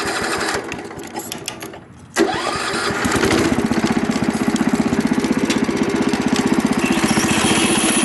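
Wheel Horse garden tractor's engine starting: after a quieter, uneven spell it catches suddenly about two seconds in, its pitch rising, then runs steadily with a fast, even beat.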